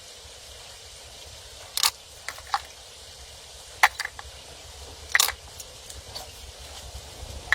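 A string of short, sharp clicks and snaps at irregular intervals, the loudest about two, four and five seconds in, over a low steady rumble.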